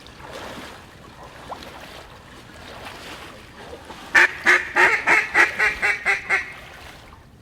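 Mallard duck call blown in a quick series of about ten loud quacks over two seconds, starting about four seconds in and falling off in loudness, in the style of a hen mallard's hail call.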